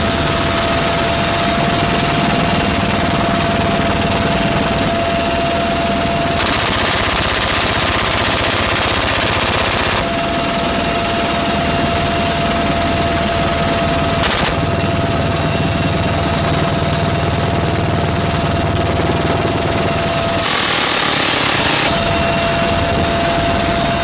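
Door-mounted minigun on a UH helicopter firing long continuous bursts, one starting about six seconds in and lasting several seconds, another briefly near the end. Under it runs the steady noise and whine of the helicopter in flight.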